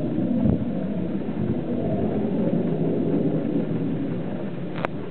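Steady low rumbling noise with no clear pitch, and a single sharp click near the end.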